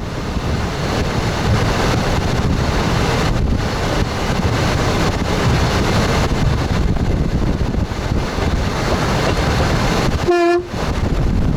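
Express train running along the track, heard from the driver's cab as a steady rumble and rushing noise. Near the end comes a brief, clear high tone lasting about a third of a second.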